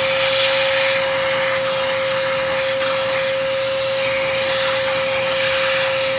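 A vacuum cleaner running, its motor giving a steady high whine, with the hiss of air rushing into the nozzle as it sucks dust out of a vacuum filter. The rush swells and eases as the nozzle moves along the filter.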